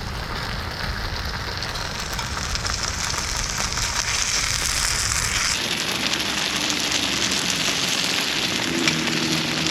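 Wood fire crackling: a steady hiss dotted with many sharp pops. The sound changes abruptly a little over halfway through.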